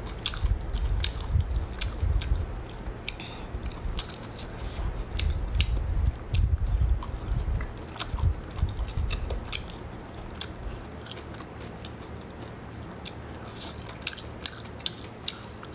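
A person chewing and biting a mouthful of saucy stir-fried food close to the microphone: soft thudding chews with many sharp, wet mouth clicks. The chewing is heavier for the first two thirds and lighter after about ten seconds.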